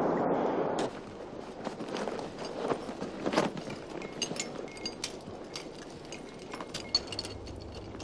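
A steady rushing noise cuts off just under a second in. After it come irregular clicks and short metallic clinks of ice-climbing hardware being handled as crampons and gear are readied.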